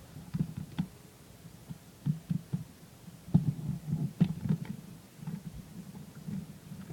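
Irregular dull knocks and small clicks of a plastic Xbox 360 controller being handled while its screws are turned out with a Torx T8 security bit, heard close to the microphone.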